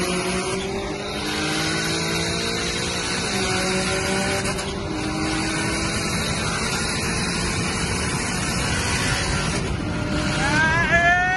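A turbocharged Nissan 370Z and a BMW F10 M5 accelerating flat out side by side, heard from inside a car, with heavy wind and road noise. The engine pitch climbs with revs, drops once about three seconds in, then holds. Near the end a loud sharply rising tone comes in.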